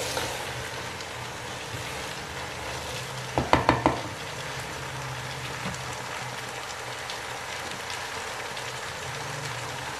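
Radish pods and peas frying in oil in a nonstick pot, a steady sizzle as they are stirred with a wooden spatula. A quick run of knocks about three and a half seconds in is the loudest moment.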